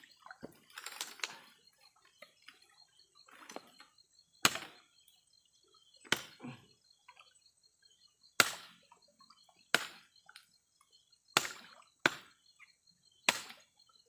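A series of sharp clicks or knocks, about seven of them one to two seconds apart starting about four seconds in, over a faint steady high-pitched hum.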